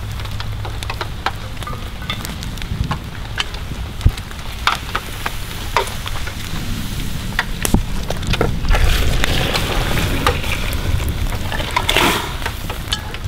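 Cast iron cooking pot handled over a campfire: scattered metal clinks and knocks as its lid comes off and the pot is lifted. Then stewed meat and broth are tipped into an aluminium pot, with a few seconds of splashing and pouring near the end, over a low steady rumble.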